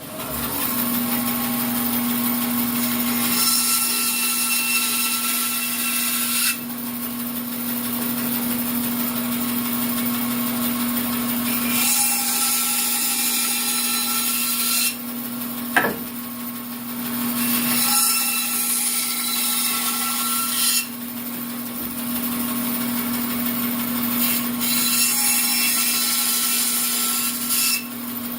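Bandsaw starting up and running with a steady motor hum, its blade cutting through wood in four spells of a few seconds each. There is one sharp knock about halfway through.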